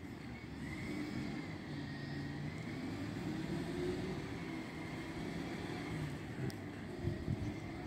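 Refuse collection lorry's diesel engine running as it creeps along the street, a low steady rumble with a thin high whine wavering above it.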